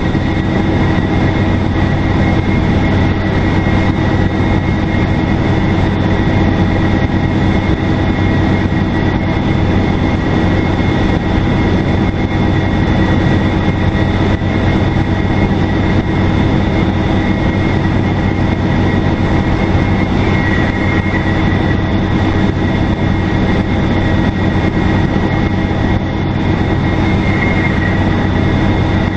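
Turbocharged Detroit Diesel Series 50 engine of a 2002 NABI 40LFW transit bus running steadily, a low engine drone with a steady high turbo whistle over it.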